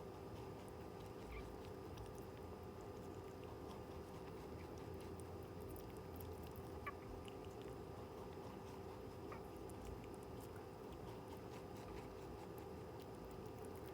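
Netherland Dwarf rabbit eating pear: faint, scattered small chewing clicks over a steady background hum, with one sharper click about seven seconds in.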